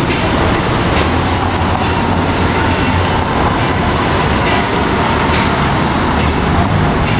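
Loud, steady rumble of city street traffic and heavy vehicle engines.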